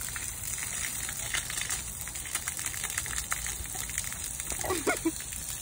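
Garden hose spraying a steady jet of water that splashes onto stone flagstones and against a bloodhound puppy biting at the stream.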